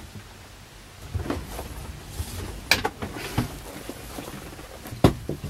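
A handful of sharp knocks and clicks over a low rumble inside a sailboat's cabin. The loudest knock comes a little under three seconds in, and another sharp one comes near the end.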